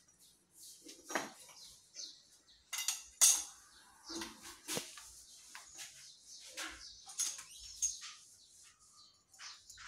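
Irregular metallic clinks and knocks of steel parts on a hydraulic press being handled and set against a stainless steel shaft, the sharpest knock a little over three seconds in.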